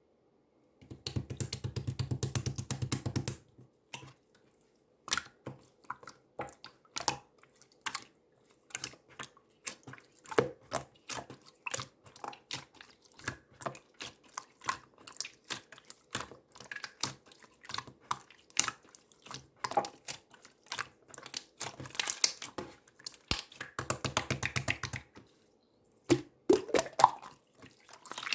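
Clear slime being squished, stretched and poked by hand, making irregular wet clicks and small popping sounds, with two longer stretches of dense squishing.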